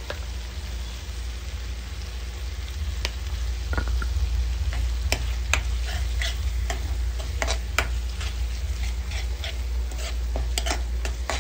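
A spoon stirring the cooked tomato-and-spice gravy in a pan, with irregular clicks and scrapes of the spoon against the pan from about three seconds in, over a faint sizzle and a steady low hum.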